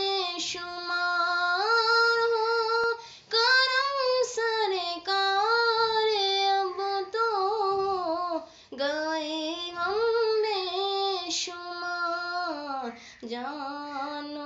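A high female voice singing a naat, an Urdu devotional song, solo and without instruments, in long held, ornamented phrases with short breaks for breath about every five seconds.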